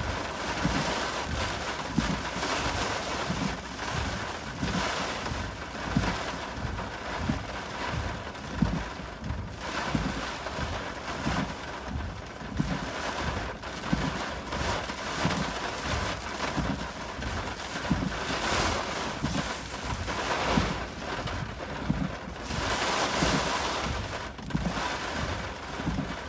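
Storm wind of an approaching hurricane gusting against a car with rain on it, heard from inside the cabin. The gusts rise and fall throughout, with a stronger one near the end.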